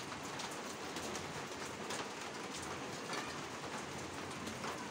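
Steady rain falling: an even hiss with scattered faint ticks.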